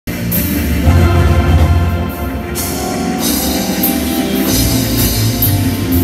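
Acoustic drum kit played hard and fast live, with frequent cymbal crashes over a sustained low bass underneath.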